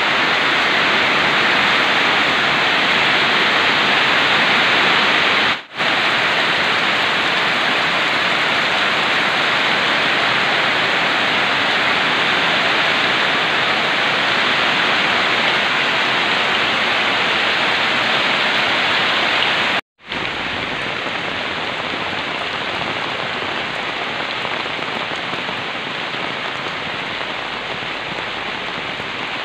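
Steady rain falling, a dense even hiss. It breaks off for an instant twice, about six seconds in and about twenty seconds in, and is a little quieter after the second break.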